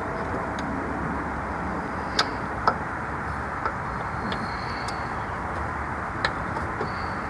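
A few sharp, separate metal clicks of hand tools on engine parts, the loudest two about two seconds in, over a steady background hiss.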